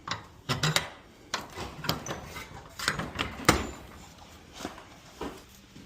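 Irregular metallic clinks and knocks as worn garage door rollers are pried out of the steel track and handled, with one sharp strike about three and a half seconds in.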